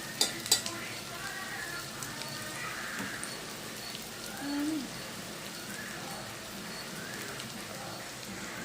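Food sizzling steadily as it fries in hot oil in a pan, with two sharp clicks of a utensil against the pan less than a second in.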